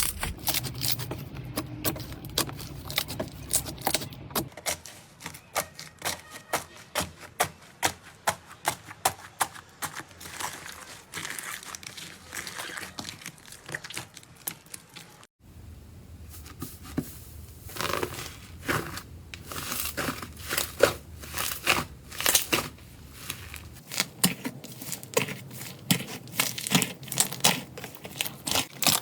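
Slime being squeezed and poked by hand, giving a run of crackling, popping clicks. It cuts off about halfway through and a second slime clip with similar popping starts.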